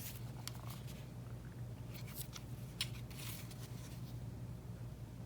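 Light handling sounds: a handful of short clicks and rustles of a charger cable and its packaging being taken out and handled, over a steady low hum.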